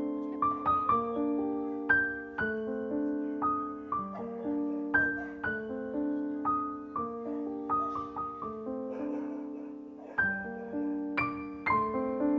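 Background piano music: single notes and chords struck at an unhurried pace, each ringing and fading.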